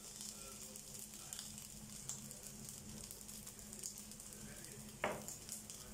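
Rice cake frying in a nonstick pan, a soft, steady sizzle and crackle, over a low steady hum. A single sharp knock comes about five seconds in.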